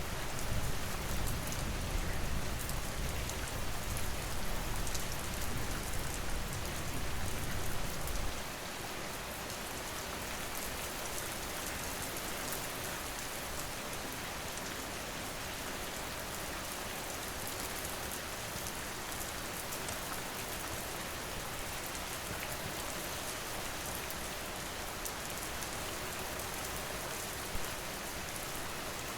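Steady rain falling, with a deep low rumble underneath for the first eight seconds or so that cuts off suddenly.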